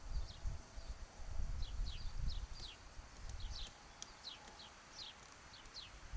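Downy woodpecker pecking at peanuts in a feeder, irregular dull knocks. Other small birds chirp in the background with many short, high, downward-sliding notes.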